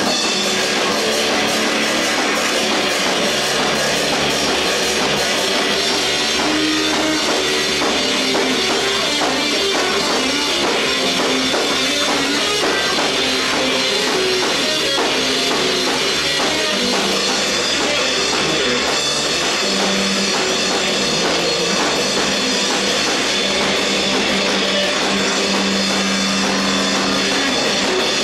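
Rock band playing live: drum kit and guitars in a loud, dense, unbroken wall of sound.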